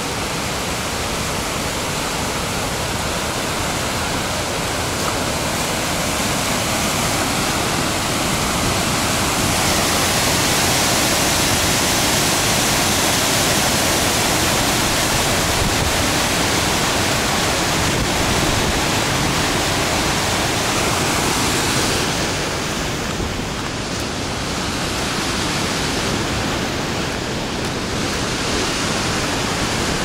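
Rushing water of a mountain waterfall's cascades: a steady hiss that grows louder from about ten seconds in and eases again a little after twenty seconds.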